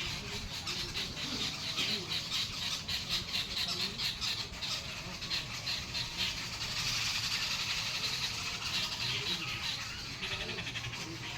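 Many birds chirping at once in a dense chorus: a fast, continuous run of short high chirps.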